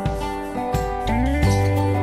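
Background music with guitar and held notes; a deep bass note comes in about one and a half seconds in.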